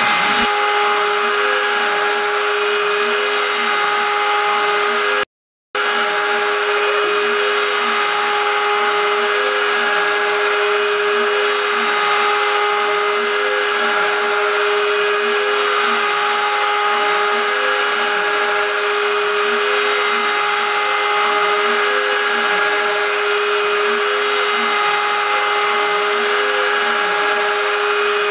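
WorkBee CNC router spindle milling 6061 aluminium with an end mill on an adaptive toolpath: a steady high whine over cutting noise, with a faint sound that swells and dips about once a second. It drops out for about half a second roughly five seconds in.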